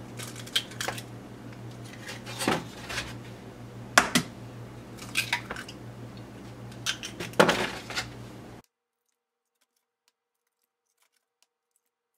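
Raw eggs being cracked into a plastic mixing bowl: a series of sharp taps and shell cracks, spaced a second or so apart, over a low steady hum. The sound drops out to complete silence about two-thirds of the way through.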